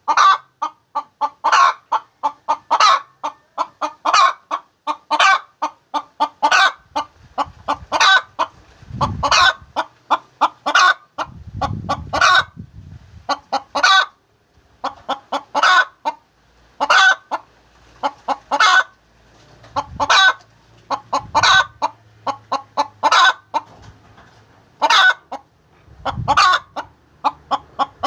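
A hen cackling: quick runs of short clucks, each ending in a louder, drawn-out squawk, repeated about every second and a half without let-up. This is the cackle a hen gives around laying an egg.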